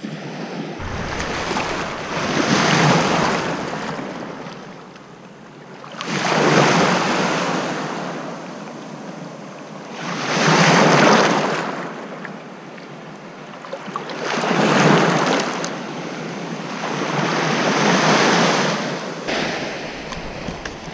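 Small surf breaking and washing up a sandy beach, five swells of rushing water, each rising and fading, about every four seconds.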